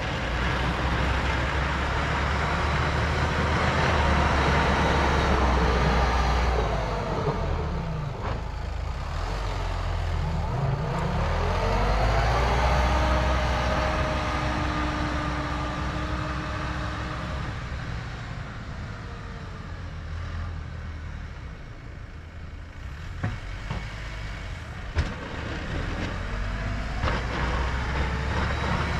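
Kubota M5-091 tractor's four-cylinder turbo-diesel engine running under load while pushing snow. Its pitch dips and rises as it works close by around eight to twelve seconds in. It grows fainter as the tractor moves off, with a single sharp knock about 25 seconds in, and gets louder again near the end as it heads back.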